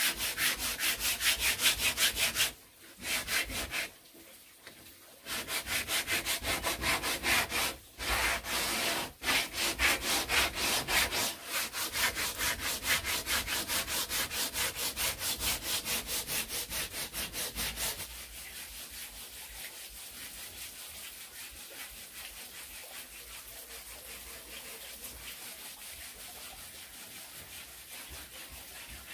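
Wood being worked by hand with a tool in quick, even back-and-forth strokes, about four a second. The strokes break off twice a few seconds in, resume, and turn quieter about two-thirds of the way through.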